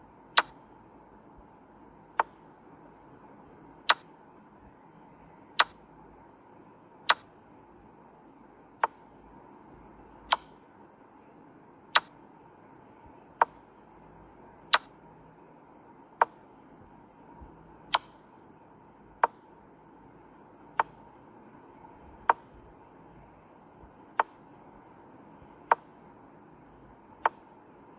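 Chess app's piece-move sound effect: a short, sharp wooden click for each move as the game is replayed, about one every one and a half seconds, over a faint steady hiss.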